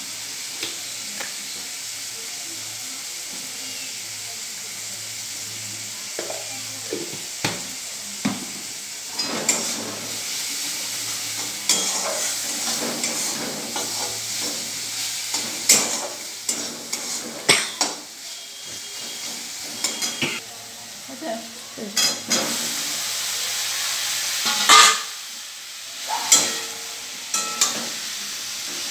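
Vegetables sizzling in hot oil in a steel kadai, tomatoes and green chillies and then broccoli florets, while a steel spatula stirs them with repeated sharp scrapes and knocks against the pan. The loudest clatter comes near the end.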